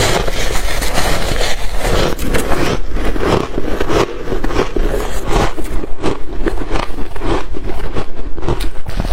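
Close-miked chewing of shaved ice, a dense wet crunching that settles into a quick rhythm of several bites a second.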